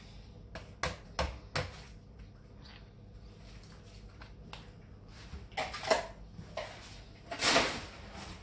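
Kitchen handling sounds: a small plastic dairy pot squeezed and knocked against a ceramic mixing bowl as it is emptied, giving three sharp taps about a second in and more knocks around six seconds. A short louder scraping rustle comes near the end.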